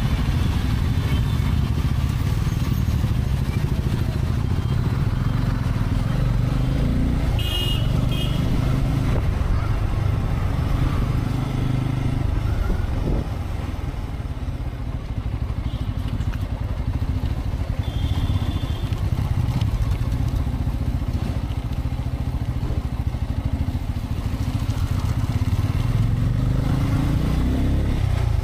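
Bajaj Pulsar N250's single-cylinder engine running steadily while riding at low city-traffic speed, with road and wind noise, heard from a camera on the bike. The sound dips briefly about halfway through. Two short high beeps come through, one about a quarter of the way in and one about two-thirds in.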